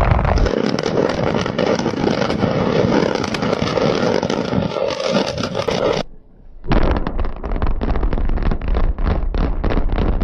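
Controlled building demolition: a long rumbling crash of collapsing structure and falling debris. About six seconds in it cuts out briefly, then another demolition follows as a dense crackle over a low rumble.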